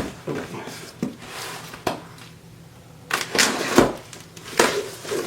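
A cardboard box and its packing being opened and handled: sharp knocks and clacks with scraping, rustling swishes.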